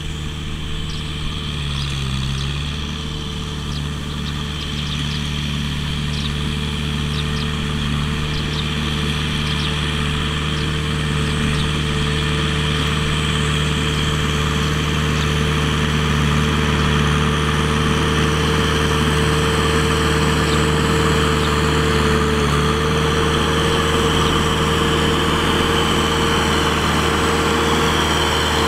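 Kubota M6040SU tractor's diesel engine running steadily while its front blade pushes a pile of loose soil, growing louder over the first half as the tractor comes closer, then holding steady.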